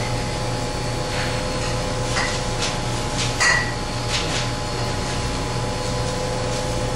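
Several short, light knocks and scrapes, like utensils on dishes, scattered over a steady mechanical hum.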